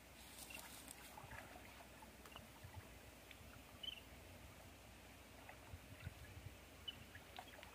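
Faint river water sloshing and lapping as a person wades and moves through it, with small splashes, the clearest about four seconds in. A few short high chirps sound over it.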